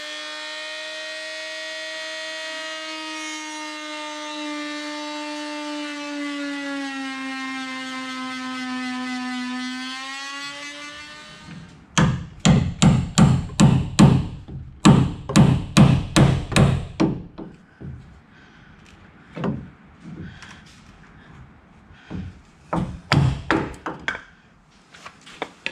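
An oscillating multi-tool runs steadily with a high whine, its pitch sagging a little as it cuts into wood, then stops a little before halfway. Then a hammer drives a wood chisel in sharp blows, about two or three a second for some five seconds, followed by a few sparser groups of blows, knocking a glued wooden block off the frame.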